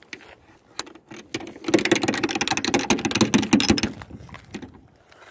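A couple of sharp clicks, then about two seconds of rapid metallic rattling and clinking, fading near the end: lock hardware being handled as something is locked up.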